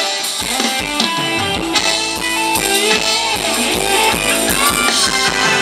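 Thai ramwong dance band music with electric guitar and drum kit, playing a steady beat.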